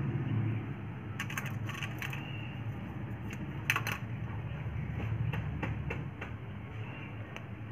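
Clear plastic ruler being shifted and settled on a sheet of paper by hand: scattered light clicks, taps and scrapes, a cluster about a second in and another near four seconds, over a steady low hum.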